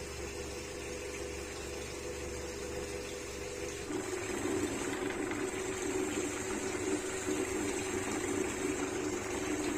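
Electric mixer motor churning curd and lukewarm water to separate out butter, a steady run with a sloshing, watery noise. About four seconds in its note shifts and it gets louder.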